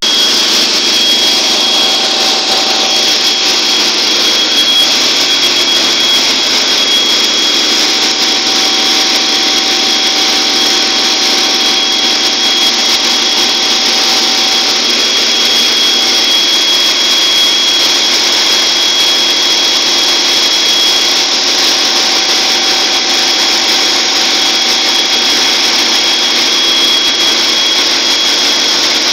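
Ship's engine room with the large main marine diesel engine and its machinery running: a loud, steady din with a constant high whine over it.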